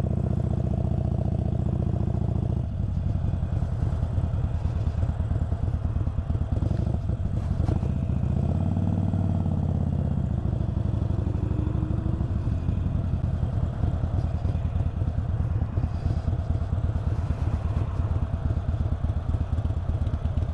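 Harley-Davidson Iron 883's air-cooled V-twin engine running while ridden in traffic. Its note rises and falls twice as the bike speeds up and eases off, then settles into a steady, pulsing low rumble.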